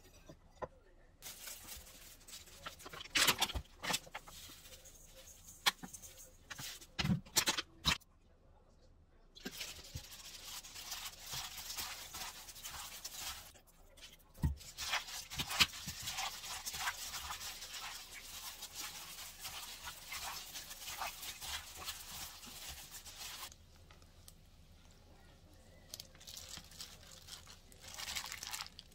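A hand in a thin plastic glove mixing and squeezing wet seasoned seaweed and cucumber (miyeok-chomuchim) in a stainless steel bowl: a steady, crackly, squelching rustle full of small clicks through most of the stretch. It is preceded by scattered knocks and clicks in the first several seconds.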